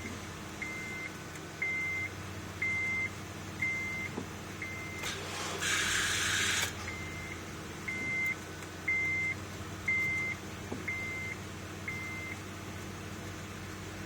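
Car's electronic warning chime beeping a single high tone about once a second, in a 2007 Acura TSX that won't start. About five seconds in, a second-and-a-half burst of hiss breaks the run of beeps.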